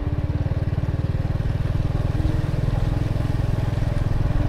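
Engine of the vehicle being ridden, running steadily on the move, with a dense, even low pulsing.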